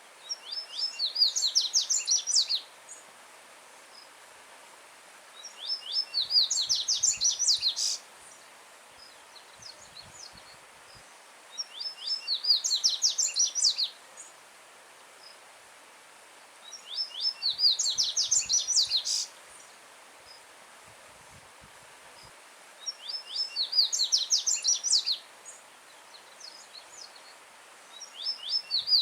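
Coleiro-baiano (yellow-bellied seedeater) singing a loud song phrase of rapid, clear high notes about every five to six seconds, each phrase lasting about two seconds and growing stronger toward its end. A faint steady rush of a stream runs underneath.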